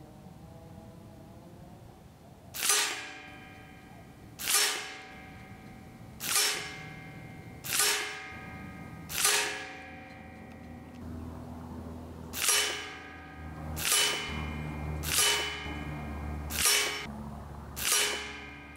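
Benjamin Gunnar regulated PCP air rifle firing ten shots, about one every one and a half seconds with a longer pause in the middle; each is a sharp crack followed by a brief metallic ring.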